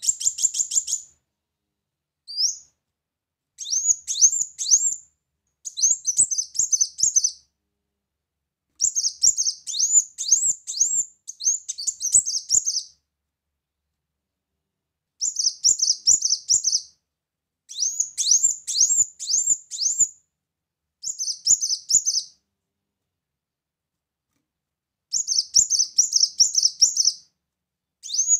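Kolibri muncang (a sunbird) singing in repeated bursts of rapid, high chirps, each burst a second or two long, with short pauses between.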